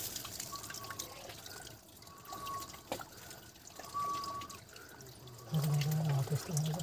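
Hands scooping and sloshing through shallow muddy water and gravel, with water trickling and a few sharp clicks of stones. Short, thin, even-pitched chirps recur every second or so, and a low voice comes in near the end.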